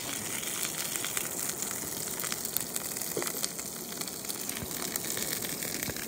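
Two thick steaks sizzling in a skillet on a two-burner camp stove: a steady frying hiss with scattered small pops and crackles.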